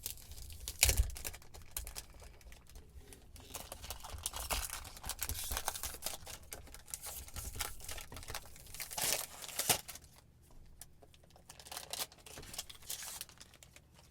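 Cologne box being opened by hand: packaging crinkling and tearing in irregular bursts, with two sharp knocks, about a second in and just before ten seconds.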